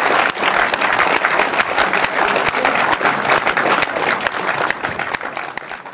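Crowd applauding, many separate hand claps standing out; the applause fades away near the end.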